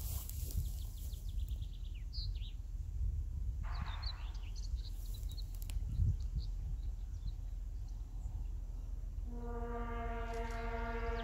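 ST44 diesel locomotive (Soviet-built M62 'Gagarin') sounding a long, steady horn blast that starts about nine seconds in, over a low wind rumble and birds chirping.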